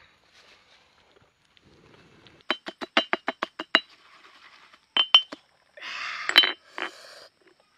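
Stone pestle pounding chilies in a stone mortar: a quick run of about eight sharp, ringing clinks at roughly six a second, then two more strikes. Near the end comes a rasping scrape of the pestle working the paste around the bowl.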